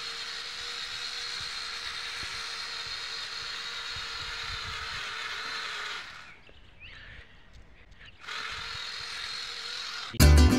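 DC gear motors of a small Arduino Bluetooth car whine steadily as it drives its wheels along a string. The whine drops away for about two seconds past the middle and then returns. Loud guitar music starts just before the end.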